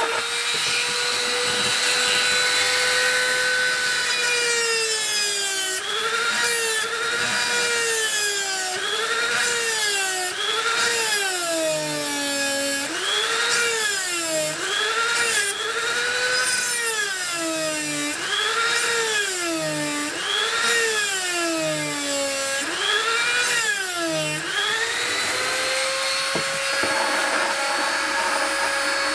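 Handheld rotary tool with an abrasive cut-off disc cutting a small metal part. It gives a loud, high whine. From about six seconds in until near the end, its pitch sags and recovers about a dozen times as the disc bites into the metal and loads the motor. Near the end it settles back to a steady free-running whine.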